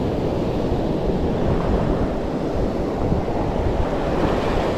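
Sea surf washing up the beach in a steady rush, with wind buffeting the microphone.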